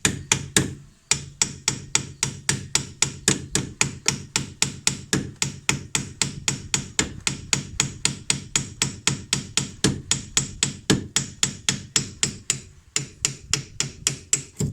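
A brake caliper being struck over and over with a hammer, in quick, even taps about four a second. There are short pauses about a second in and near the end.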